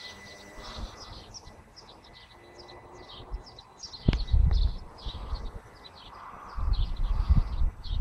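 Small songbirds chirping in quick, repeated short calls. Low rumbling buffets on the microphone come in about halfway through and again near the end, and are the loudest sound.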